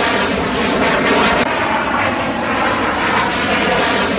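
Dassault Rafale fighter jet's twin Snecma M88 turbofan engines, a loud, steady jet noise as the aircraft flies overhead.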